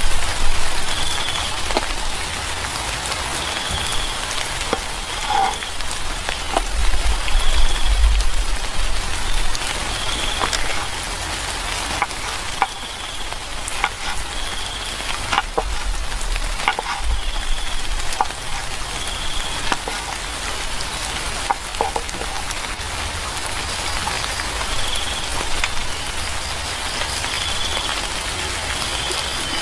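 Steady rain hiss with scattered sharper drop ticks. A short high chirp repeats about every second and a half.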